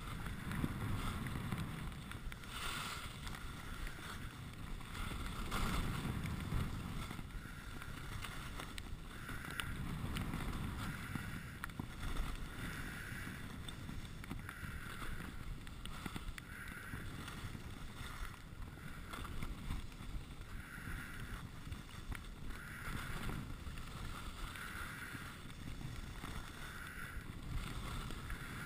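Skis sliding and scraping on groomed snow, the scrape swelling and fading with each turn every second or two, with wind rumbling on the helmet camera's microphone.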